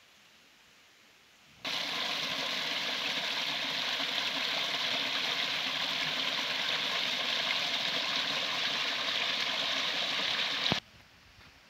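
Small rocky stream splashing and trickling over stones in a little cascade, a steady rush of water. It starts abruptly about two seconds in and cuts off suddenly with a click near the end.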